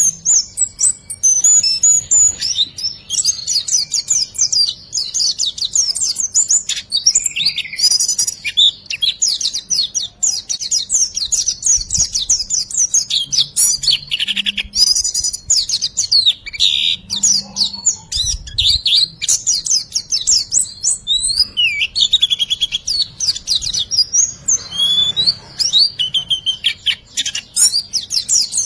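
Songbird singing continuously in a fast, high-pitched stream of chirps and trills, a dense 'riwikan' style song full of varied fill-in notes used as training audio for cage birds.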